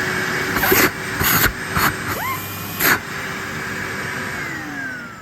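A Numatic Henry vacuum cleaner's genuine 1200 W motor running with a steady whine, with a few sharp knocks in the first few seconds. About four seconds in it is switched off and its pitch falls as the motor winds down.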